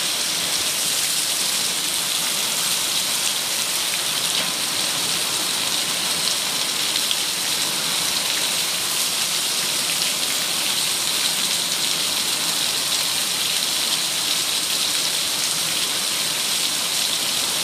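Heavy downpour of rain mixed with hail beating on paving, grass and a wooden deck: a dense, steady hiss flecked with fine ticks of single impacts.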